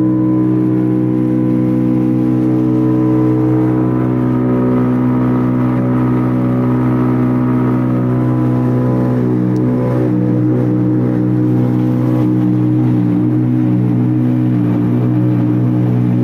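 A 20-foot Valmetal silo unloader running, belt-driven from its motor and throwing silage, with a steady, even hum made of several pitched tones. It runs smoothly, without clunking or hammering, on a freshly rebuilt impeller with new bearings and paddles.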